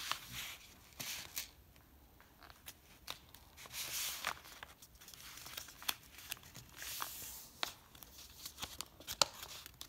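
A sheet of paper being folded and creased by hand into a paper airplane: soft rustling and crinkling, with sharp crackles every second or so as the folds are pressed down.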